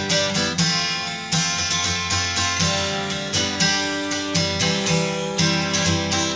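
Background music: strummed guitar chords, a fresh strum every second or so.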